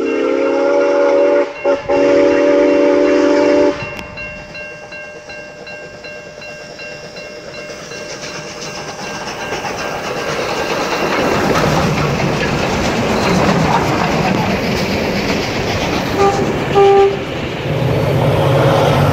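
A train horn sounds a steady chord for about four seconds, broken twice for an instant. Then a rumbling, clattering train running sound builds up, with two short horn toots near the end.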